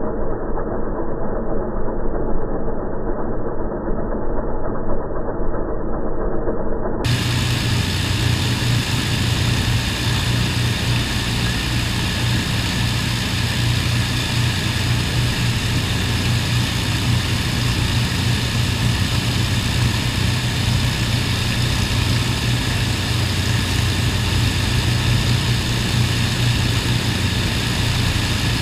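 The four Merlin V12 piston engines of an Avro Lancaster bomber running steadily together during a ground engine run, a deep even drone with no change in speed.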